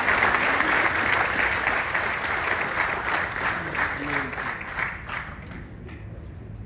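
Audience applauding, with dense clapping that thins out and dies away over the last second or two.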